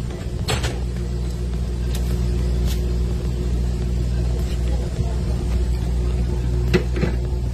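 A fishing boat's engine running steadily with a low hum, with a few short knocks on top.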